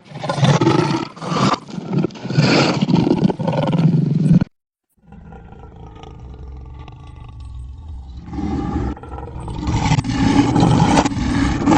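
Lion roar sound effect played in reverse. Loud roars cut off abruptly about four and a half seconds in. After a short gap, a low growl swells steadily louder toward the end.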